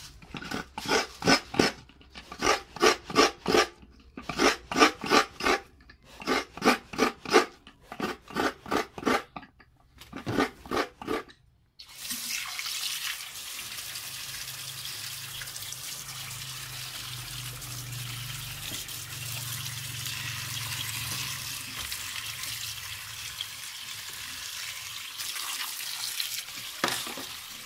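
Bursts of quick scraping strokes, each burst about a second long, for roughly the first half. Then tap water runs steadily into a basin for the rest, with a splash near the end.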